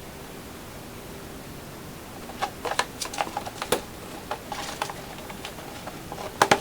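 Irregular light clicks and taps of hand work with tools and small hardware. They start about two seconds in over a steady background hiss, with a sharper click near the end.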